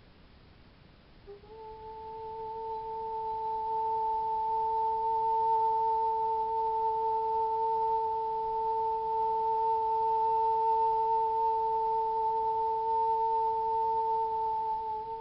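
A single long, pure, steady note, with a clear octave ringing above it. It enters about a second in, swells slowly, holds without wavering, and starts to fade near the end.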